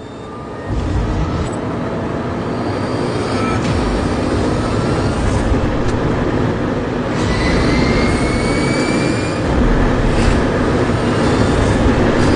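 Rimac Nevera electric hypercar accelerating hard in reverse: a thin electric-motor whine climbs slowly in pitch over loud wind and tyre noise that sets in under a second in and keeps getting louder.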